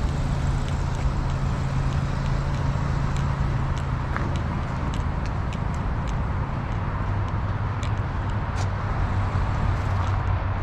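City street traffic: a motor vehicle's engine running close by, its low hum dropping in pitch about two-thirds of the way through, over a steady wash of road noise with faint scattered ticks.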